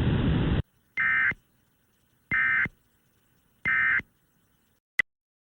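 Emergency Alert System end-of-message (EOM) data bursts: three short, shrill digital squawks about a second apart, marking the end of the alert, followed by a single short click.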